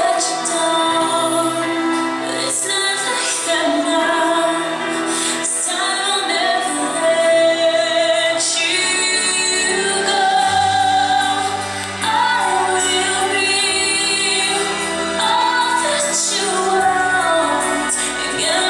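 A recorded pop ballad with a woman singing a slow, held melody; deeper bass notes come in about halfway through.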